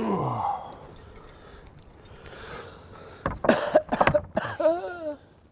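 Clattering and metallic rattling at a wooden garden shed door, like a latch or hasp being worked and things knocked about inside, with a few short squeaks near the end.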